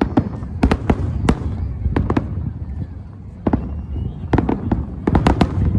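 Fireworks bursting overhead: sharp bangs in quick clusters over a low rumble, easing off about halfway through, then a dense run of bangs near the end.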